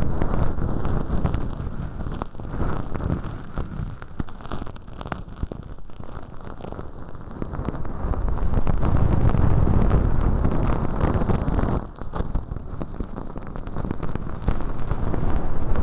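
Earpick scraping and crunching thin, crispy sawdust-like fake earwax inside a tube over a binaural microphone: a dense, muffled crackle of fine scratches and clicks, louder in the middle.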